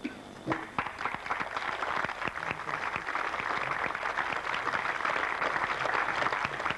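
Audience applauding, beginning about half a second in and quickly building to steady clapping.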